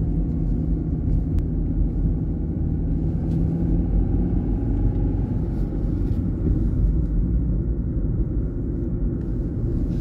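Car driving along a country road, heard from inside the cabin: a steady low rumble of engine and tyres on the road surface.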